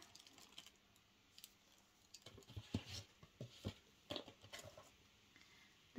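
Faint, scattered clicks and soft taps of cosmetic tubes and box packaging being handled, most of them in the middle of the stretch.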